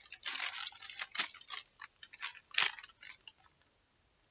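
Plastic Maggi instant-noodle packet crinkling as it is handled: a run of irregular crackles with a couple of sharper snaps, dying away about three and a half seconds in.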